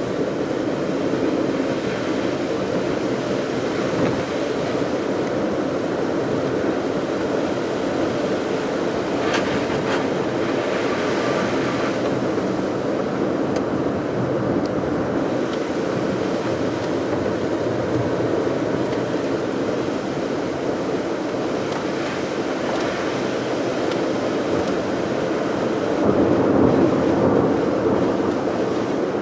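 A car being driven, heard from the vehicle: steady road and engine noise, with a brief higher hiss about a third of the way in and a slight swell near the end.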